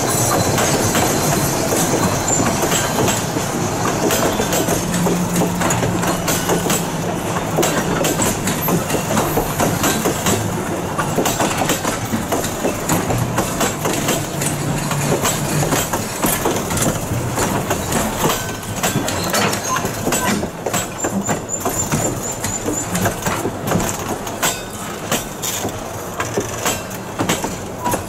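Passenger coaches of a train rolling past at close range, their wheels clicking and rattling steadily over the rail joints, the sound slowly growing quieter as the last coach comes by near the end.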